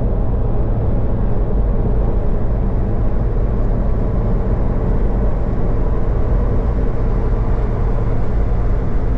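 Old Nissan Patrol four-wheel drive cruising at highway speed, its engine drone and tyre and road noise heard steadily from inside the cabin.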